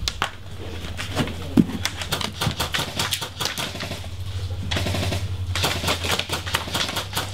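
Airsoft guns firing: scattered sharp snapping shots, then rapid rattling bursts in the last couple of seconds.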